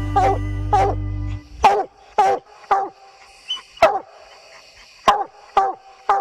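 Coonhound barking treed at the base of a tree, a steady chop of short barks about two a second, each dropping in pitch, with a brief pause midway. Background music runs under the barking for the first second and a half, then cuts off.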